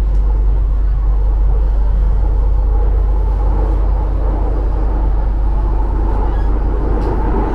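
Steady low rumble and hum of a Delhi Metro train running at speed, heard from inside the passenger car.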